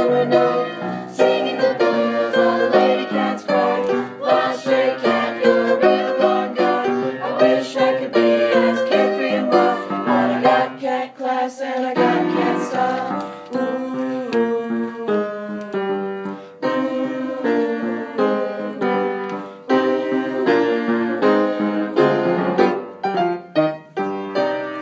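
Junior high jazz choir singing with piano accompaniment.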